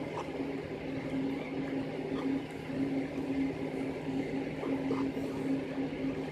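A steady low mechanical hum, with a second higher tone that wavers in and out every half second or so.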